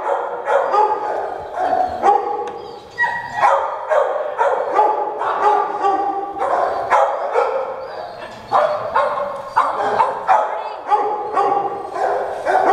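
Several dogs barking over one another, with barks and yips at different pitches coming about every half second without a pause.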